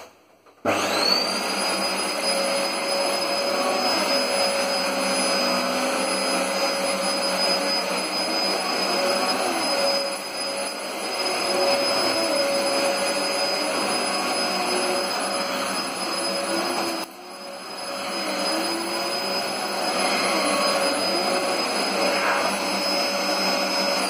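Dyson DC04 upright vacuum cleaner switched on, its motor spinning up within a moment to a steady high whine, then run over carpet. About two-thirds of the way through, the sound briefly drops and recovers.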